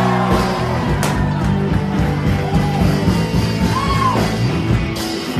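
Loud music with a singer, playing steadily, with one short sharp crack near the end.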